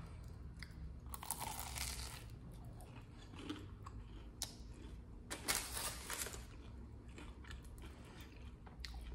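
Biting into and chewing a McDonald's cheesecake pie, its crisp, bubbly pastry crust crunching in a few short bursts, the loudest a little past the middle.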